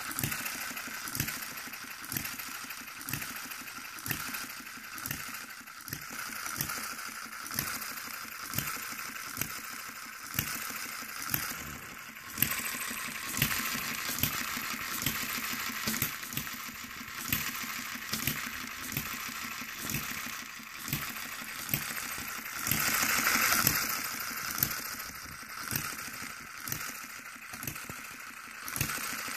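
One-third-scale New Holland stationary gas engine model running: a steady fast mechanical clatter with a louder beat about once a second. About three-quarters of the way through, a louder hiss lasts a second or so.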